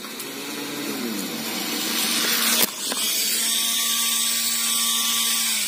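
Brushless (BLDC) motors spinning the propellers of a wire-riding model air train, whining. The pitch falls in the first second and a half, a rising rush follows, and there is a sharp knock about halfway through. After that the whine holds steady and stops near the end.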